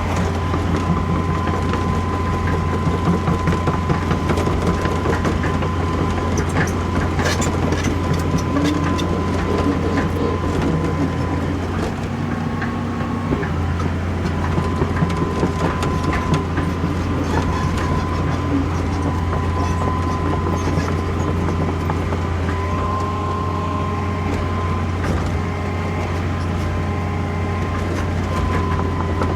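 Excavator's diesel engine running steadily while it is operated, with a steady whine over it and scattered knocks.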